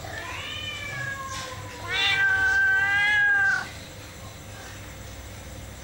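A kitten meowing twice in long, high calls. The first call rises and slowly falls, and the second, about two seconds in, is louder and held steady.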